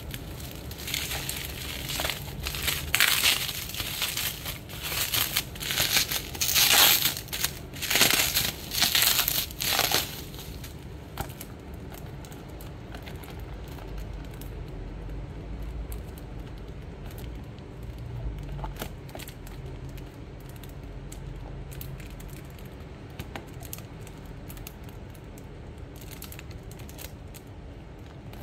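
Bubble wrap crinkling and crackling as it is pulled off a boxed perfume, in loud irregular bursts for about the first ten seconds. After that there is only faint handling noise with scattered light ticks.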